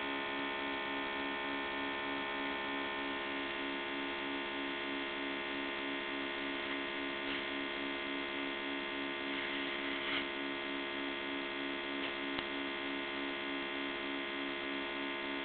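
Steady electrical hum with many overtones, one tone in it pulsing about three times a second.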